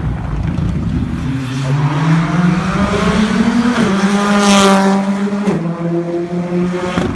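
Rally car engine running at high revs as the car accelerates past. Its pitch climbs, then steps down abruptly twice, and it is loudest about four and a half seconds in.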